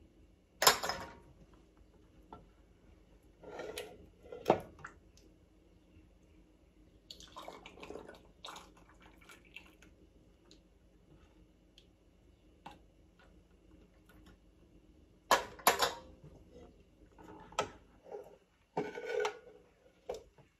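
Ladle and steel jam funnel knocking against a stainless steel preserving pan and glass jam jars, with hot red currant jelly being poured and dripping through the funnel into the jars. Several sharp knocks stand out, the loudest about a second in, at about four and a half seconds, and a quick pair about fifteen seconds in, between stretches of pouring.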